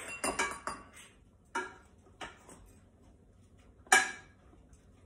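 Utensils clinking and knocking against a pot and bowl as strawberries are mashed and cornstarch is spooned out: a quick run of knocks at first, then single knocks, the loudest about four seconds in.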